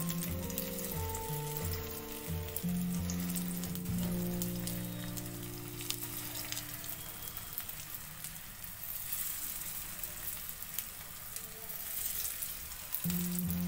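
Sabudana (tapioca pearl) patties sizzling as they shallow-fry in a little oil in a kadhai, more patties being laid in one by one. Background music plays over the first few seconds and comes back near the end.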